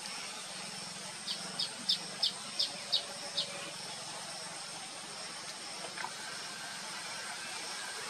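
A bird giving a quick, even series of seven short, high chirps, about three a second, over a steady high-pitched insect drone.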